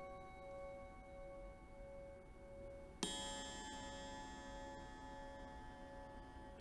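Bell-like ringing tones from a live improvised performance on self-built resonant instruments: a held tone wavering with a slow, regular pulse, then about three seconds in a single bright strike whose many overtones ring on and slowly fade.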